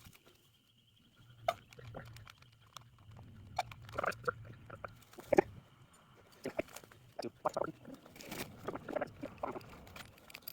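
Irregular rustling with scattered light clicks and knocks, the sound of gear being handled, over a faint low hum.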